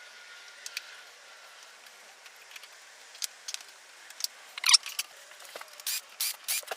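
Small metal screws and hand tools being handled: scattered sharp clicks and taps, coming closer together and louder in the second half, with one loud clack near the middle.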